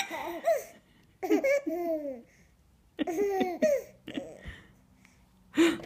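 A baby laughing in high-pitched bursts, three bouts with short pauses between them and a fourth starting near the end, in reaction to a sneeze.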